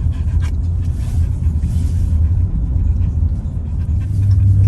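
Four-wheel-drive truck's engine and drivetrain rumbling steadily while driving through deep snow. It grows louder about four seconds in.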